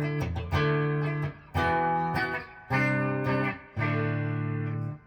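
1986 Hamer Chaparral electric guitar played through its coil-split bridge pickup: a handful of strummed chords, each struck and left to ring for about a second before the next.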